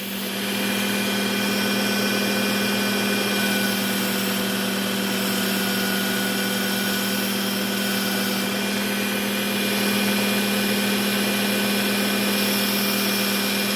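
Work Sharp Ken Onion Edition electric belt sharpener running steadily: a motor hum with a steady whine and the hiss of the abrasive belt, as a small whittling-knife blade is ground on the Trizact A30 (600-grit) belt to raise a burr. It gets a little louder about half a second in.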